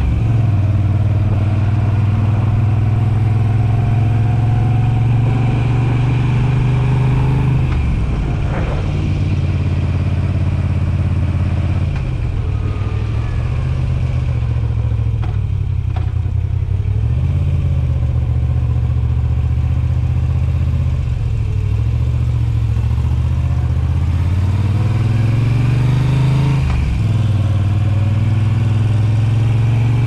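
Moto Guzzi V7 850's air-cooled transverse V-twin running through Mistral short slip-on exhausts while riding, heard from the saddle: a loud, deep, steady exhaust note. Engine speed dips and picks up again a few times, about eight seconds in, around the middle and near the end.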